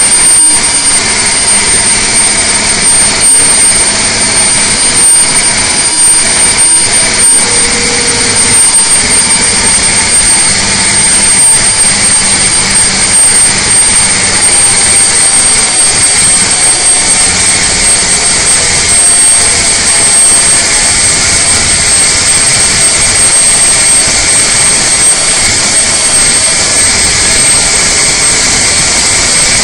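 Detroit Diesel Series 60 inline-six diesel running loud and steady at full throttle under dynamometer load, with a steady high whine over the noise. The engine is being pulled down slowly from about 2100 to 1700 rpm while making close to 600 hp.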